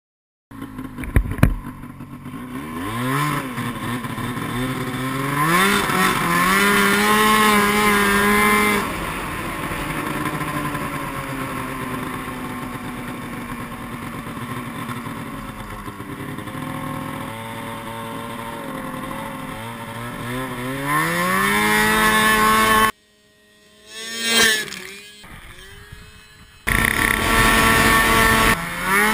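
Snowmobile's 500 cc two-stroke engine under way, revving up and down as it accelerates and cruises, after a few sharp knocks near the start. About three-quarters through the engine sound cuts out abruptly for a few seconds, apart from one short rev, and then returns at full pitch.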